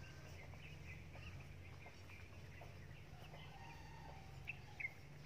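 Faint scattered bird chirps and calls over a low steady hum.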